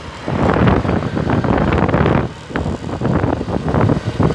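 Honda CBF150 motorcycle's single-cylinder engine running at a steady cruise, around 5,000 rpm, heard while riding, with wind buffeting the microphone in uneven gusts.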